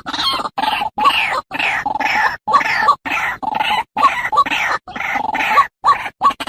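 White-breasted waterhen (ruak-ruak) calls played as a lure recording: short harsh calls repeated about twice a second, each chopped off by an abrupt silent gap.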